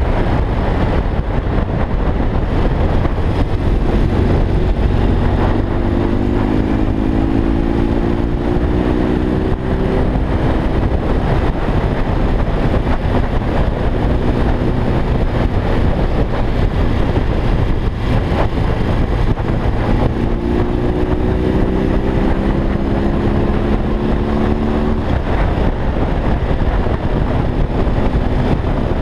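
BMW R45's air-cooled boxer twin running under way over a steady rush of wind and road noise. Its pitch climbs slowly twice as the bike pulls through a gear.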